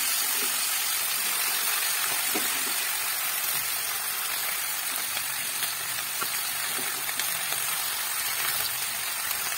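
Chopped leafy greens sizzling in hot oil in a metal pan, just added: a loud, even hiss that eases off a little as the leaves wilt, with a few faint clicks.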